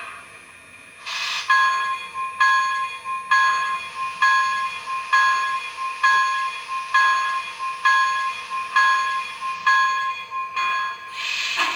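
Sound system of a model Union Pacific Big Boy 4-8-8-4 steam locomotive ringing its bell before departure, about eleven even strokes a little under a second apart. A short hiss comes about a second in, and steam hiss starts again near the end as the engine gets under way.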